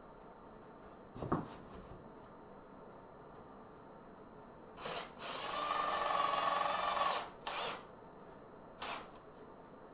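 A single knock about a second in, then a power drill/driver run on screws in short bursts: a brief blip, one steady run of about two seconds, then two more brief blips.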